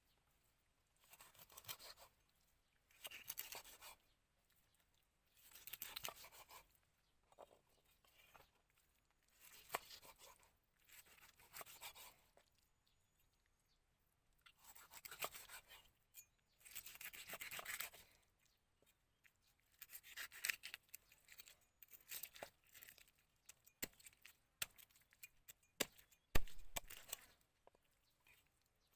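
Large knife sawing through a whole fish on a wooden chopping board, cutting it crosswise into steaks: rasping strokes through skin and bone every one to three seconds, with a few sharp knocks of the blade on the board, the loudest near the end.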